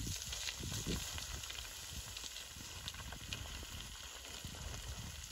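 Wind buffeting the microphone: an uneven low rumble with a hiss over it, and a few faint clicks.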